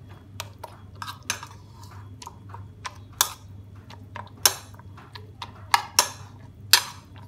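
Metal spoon stirring instant noodles and raw egg in a bowl, knocking and clinking against the bowl in irregular strokes, with several sharper clinks in the second half.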